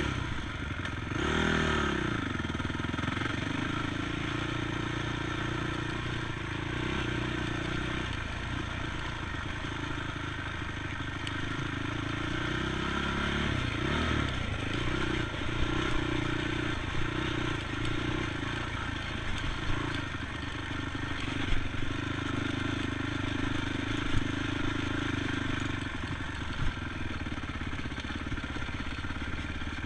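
ATV engine running under way. Its pitch swings up and back down about a second in and again around the middle, and a few sharp knocks and clatters come in the second half.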